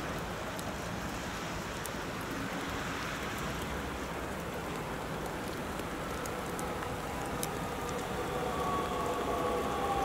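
Steady rain-like hiss with scattered faint ticks as a Bombardier Talent 2 electric multiple unit approaches. Over the last second or two its electric drive whine comes in as two thin tones, the lower one falling in pitch, and the sound grows slightly louder.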